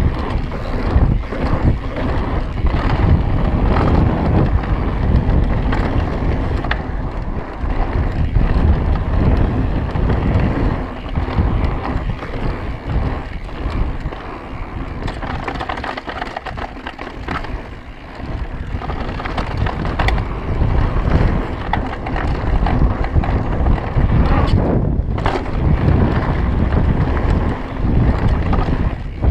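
Wind buffeting the microphone of a mountain biker's action camera, mixed with the rumble and rattle of the bike rolling fast over a dirt trail. It eases off for a few seconds near the middle, then picks up again.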